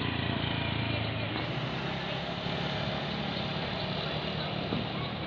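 Tour bus diesel engine running with a steady low hum.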